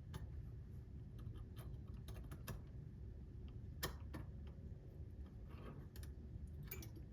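Light, irregular metallic clicks and taps of a small brass clock movement being handled, its wheel and plates knocking as the end play is checked, with one sharper click about four seconds in.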